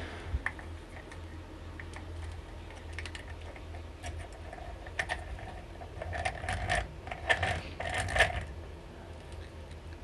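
Light metal clicks and knocks as a spiral cable bike lock is handled and its lock head is clamped in a small bench vise. The taps are scattered, busiest in the second half.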